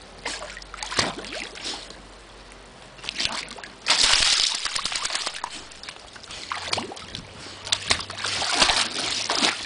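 Pool water splashing and sloshing as a swimming dog lunges and bites at a skimmer net on a pole. Heavy splashing starts about four seconds in, and comes again near the end.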